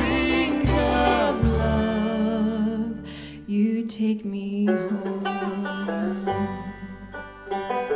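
Bluegrass band music: a voice singing over guitar and bass, then after a short dip about three seconds in, plucked strings with banjo carry on.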